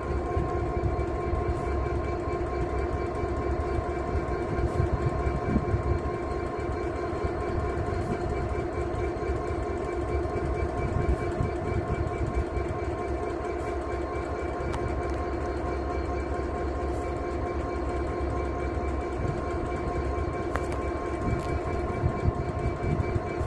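Class 66 diesel-electric locomotive, its two-stroke V12 diesel engine idling while stationary: a steady drone with a low rumble and several held tones.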